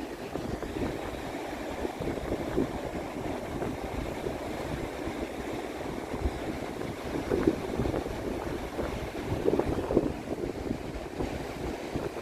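Wind buffeting the microphone in irregular gusts over the wash of waves on the shore.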